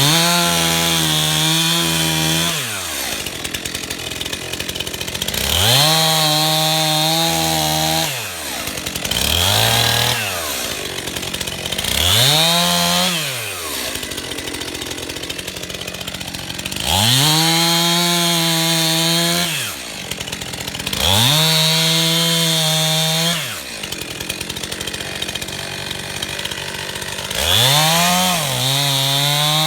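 Stihl MS291 two-stroke chainsaw opened to full throttle in about seven bursts of two to three seconds, its pitch rising and then falling back to a steady idle between them, as it cuts pine logs to length.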